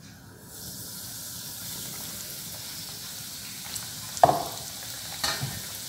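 Breaded chicken sizzling as it deep-fries in hot sunflower oil in a pan, the sizzle rising about half a second in as the piece goes into the oil and then holding steady. Two short knocks sound near the end.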